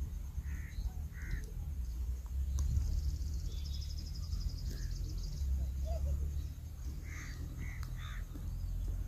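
Rural ambience: short bird calls a few times near the start and again near the end, a high buzzing trill from about three seconds in to about five, over a steady low rumble.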